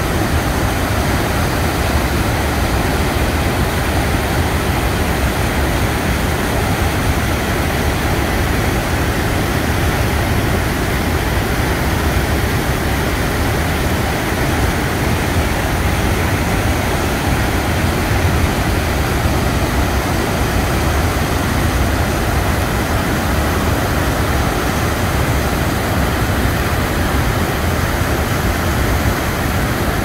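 Large waterfall and rapids, white water pouring over rock ledges: a loud, steady rushing noise, heaviest in the low end.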